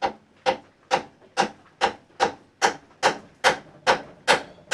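A mallet tapping repeatedly on the power head of a Tohatsu 9.8 hp two-stroke outboard, about a dozen sharp, even strikes a little over two a second. The taps are meant to knock loose a power head that is stuck on its mounting.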